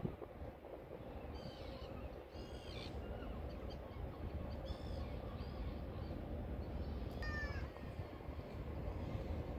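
Gulls calling: several short cries in the first few seconds and a clearer, falling one about seven seconds in, over a low steady rumble.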